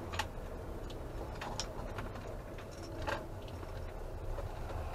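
Camper van engine running low as the van pulls off the road, heard from inside the cab, with scattered light clicks and rattles at irregular moments.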